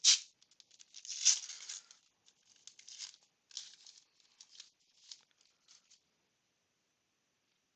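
Baseball card pack wrapper torn open and crinkled: a sharp rip at the start, a longer tear about a second in, then lighter crinkling that stops about six seconds in.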